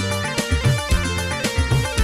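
Live dangdut band playing: electric guitars and keyboard over a steady drum beat.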